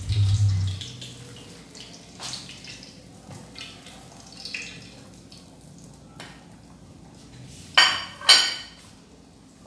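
A fork and dishes clinking and scraping at a stovetop as pastéis are turned in a frying pan, with two loud clatters about eight seconds in as a fried pastel is lifted out onto a plate.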